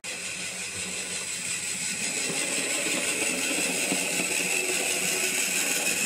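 A model train running along the track toward the microphone: a steady high whine from the model locomotive's small electric motor over a rattle of wheels on the rails, gradually getting louder.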